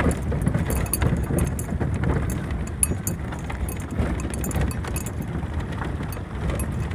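Inside a vehicle's cab on a rough gravel track: a low engine and road rumble with a constant irregular rattle and knocking as the tyres and body go over stones.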